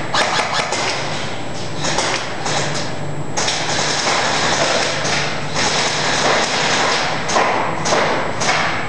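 Airsoft guns firing in irregular single shots and quick bursts, with BBs knocking against walls and cover, over a constant noisy din.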